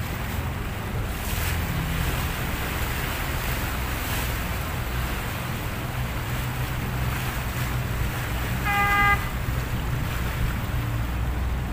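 Speedboat engine running steadily as a low hum, with water churning and wind buffeting the microphone. About nine seconds in, a short horn blast sounds once.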